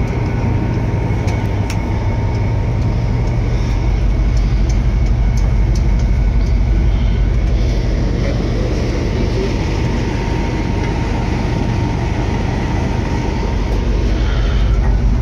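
Loud, steady low rumble of a ship's open-deck ambience, with a faint steady whine and a few light clicks.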